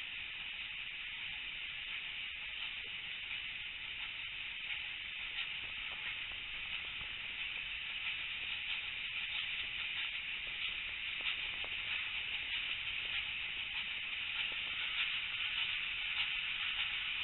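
Steady rushing hiss of a steam-hauled passenger train in motion, heard through an open carriage window, with faint scattered clicks. It grows a little louder toward the end.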